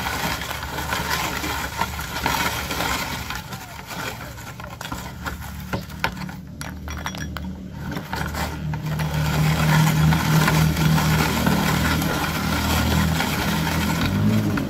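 Metal hand-cranked meat grinder being turned as it grinds pieces of jackfruit, with irregular metallic clicks and clinks. A low steady hum joins about halfway through and grows louder.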